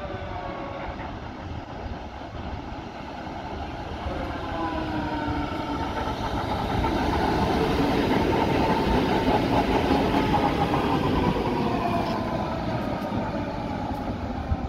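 A two-car Hägglunds M29 tram set approaching and passing close by on street track, its wheels running on the rails. It grows louder to a peak about halfway through, then fades as it moves away, with a whine that falls in pitch.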